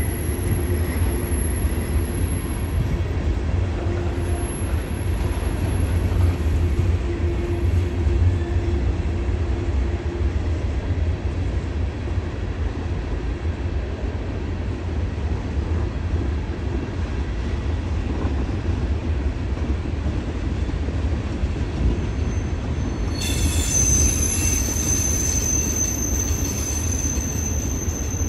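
Freight cars of a mixed freight train rolling past with a steady low rumble. Near the end a high-pitched wheel squeal sets in and holds.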